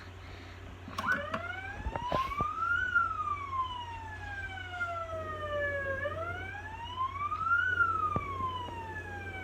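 LAMPHUS SASRN01 electronic siren sounding its wail tone, starting about a second in: a pitch that rises over about two seconds and falls slowly over about three, twice.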